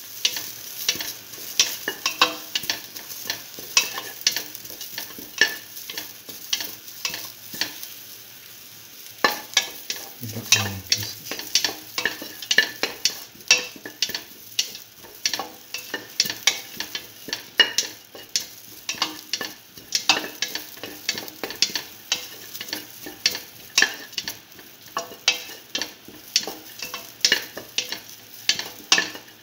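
Onion and ginger sautéing in hot oil in a stainless steel pan: a steady sizzle, with a spatula repeatedly scraping and knocking against the pan about once or twice a second as it stirs.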